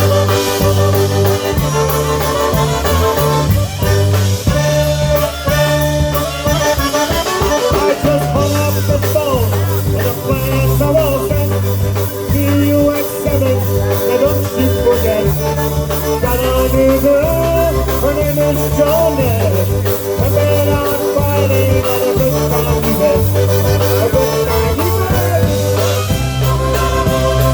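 Live polka band playing a song, with a bass line bouncing between two notes on the beat under melody instruments.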